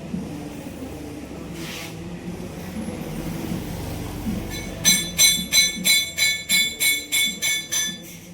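About a dozen evenly spaced metal taps, roughly three a second, each with a bright ringing tone, starting about five seconds in over a low steady background hum.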